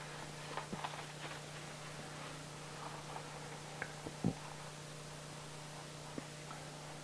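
Faint steady hum and hiss, with a few soft clicks and rustles and one short low thump about four seconds in.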